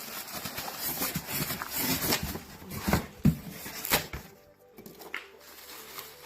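Packaging rustling and scraping with scattered knocks as a drill press's cast iron table is worked out of its box, the sharpest knock a little past the halfway point.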